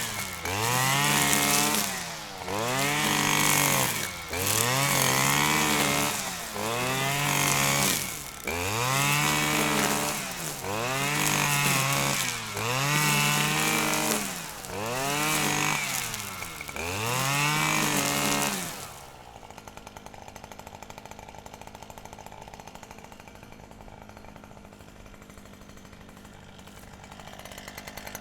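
Grass trimmer revving up and easing off over and over, about once every two seconds. About two-thirds of the way in, it drops to a steady, quieter idle.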